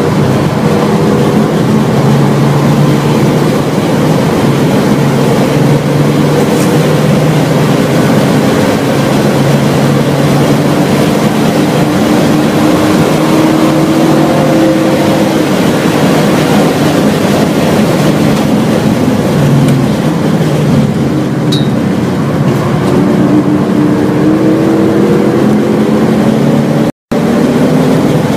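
BMW E36 M3's straight-six engine heard from inside the cabin under hard track driving, its note climbing and dropping repeatedly as the car accelerates, shifts and slows, over steady wind and tyre noise. The sound cuts out for a split second near the end.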